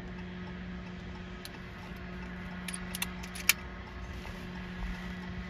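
A single sharp shot about three and a half seconds in from a Brocock BRK Ghost PCP air rifle, after a few faint clicks of handling. A steady low hum runs underneath.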